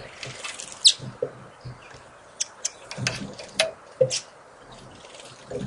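Small birds giving short, sharp chips and ticks, about a dozen scattered irregularly, with soft low knocks among them.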